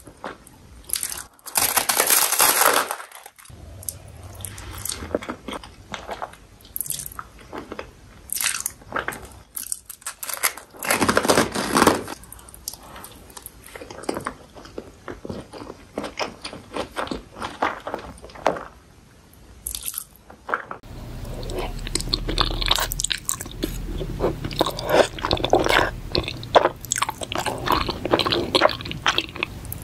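Close-miked eating sounds: loud crunching bites of toasted garlic bread and wet chewing of fettuccine alfredo. About two-thirds of the way through, the sound switches to a different close-miked recording of chewing creamy shrimp and mushroom pasta.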